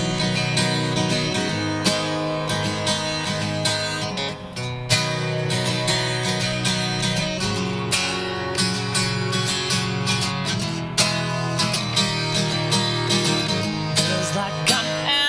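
Epiphone acoustic guitar strummed in a steady rhythm, chords ringing on between the strokes, with no singing.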